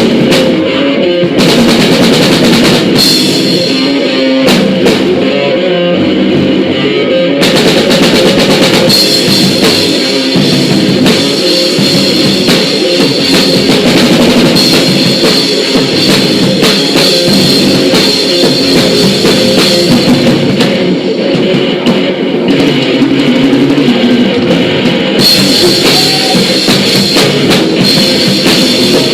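Live rock band playing loud: electric guitar and bass over a drum kit, with the cymbals crashing steadily and dropping out for a few seconds about two-thirds of the way through. No singing, only the instruments.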